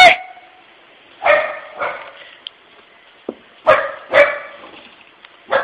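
A puppy barking nervously at a puppy-shaped tissue holder that scares it: five short barks, two quick pairs and a fifth near the end.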